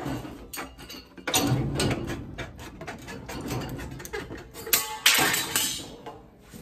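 Tin snips cutting sheet metal: a run of short, crisp snips with the sheet rattling and flexing. The sheet rattles loudest about five seconds in.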